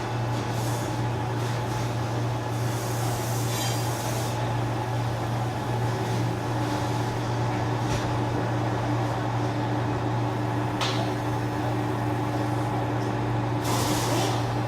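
Metal lathe running with a steady hum, a second steady tone joining about halfway through. Two short stretches of hissing come in, one early and one near the end, and there is a sharp tick a few seconds before the end.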